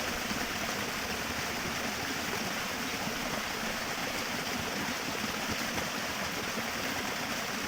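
Small waterfall's water falling and splashing: a steady rushing.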